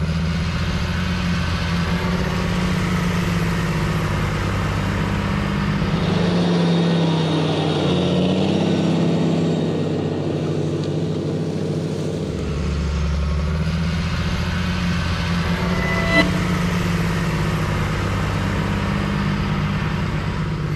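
John Deere tractor engine running steadily under load while it pulls a disc harrow through the field. Around six seconds in the deepest part of the sound drops away and the pitch bends down before the steady note returns about twelve seconds in.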